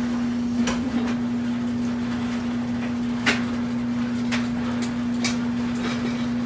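Kitchen utensils clinking and clattering in a utensil crock as a hand rummages in it and pulls out a spatula. There are a few separate sharp clinks, the loudest about three seconds in, over a steady low hum.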